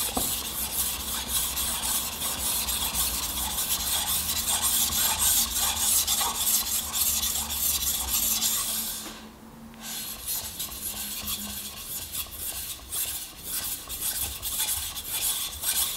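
A single-bevel Japanese kitchen knife rubbed back and forth in quick repeated rasping strokes across a wet whetstone, grinding the bevel face. The strokes stop for about a second near the middle, then go on.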